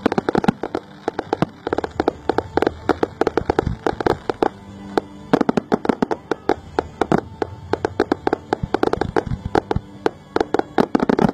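Fireworks display going off: a rapid, irregular string of sharp bangs, pops and crackles, several a second, from shells and fountains firing.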